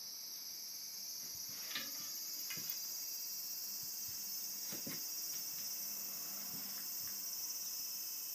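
A steady, high-pitched insect chorus, with a few faint taps as a kitten bats at a string toy on a wooden floor.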